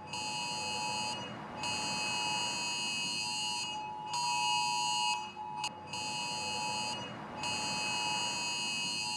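Phone emergency-alert tone: a harsh two-note tone that sounds in bursts of one to two seconds with short breaks between them. It is the attention signal of an early-warning alert test.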